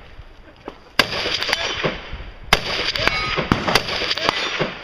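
Rifle shots echoing off the quarry walls: a loud shot about a second in and another about two and a half seconds in, with fainter shots in between and after.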